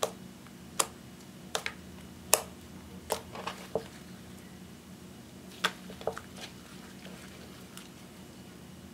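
Hands kneading and stretching clear slime mixed with eyeshadow, with sharp, irregular clicking pops as trapped air pockets burst: about a dozen in all, several close together in the first four seconds and a few more about midway.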